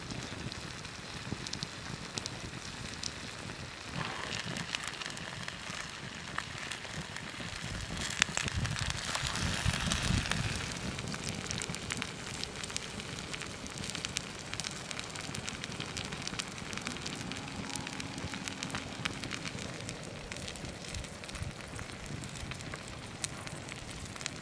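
Wood fire crackling steadily with many small sharp pops beside a pan of hot potato gratin. There is a louder spell about a third of the way in as a wooden spatula cuts into the bubbling dish.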